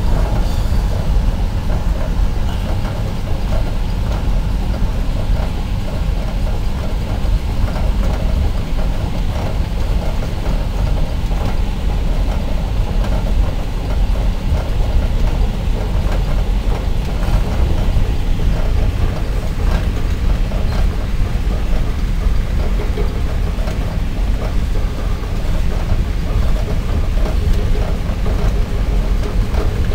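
Passenger train running along the line, heard from inside a carriage: a steady, low rumble of wheels and carriage.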